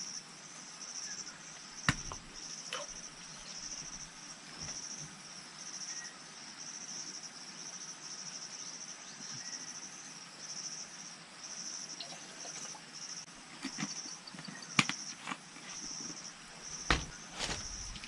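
Insects chirping in a steady rhythmic pulse, with a few sharp knocks and clicks from handling, the loudest about two seconds in and near the end.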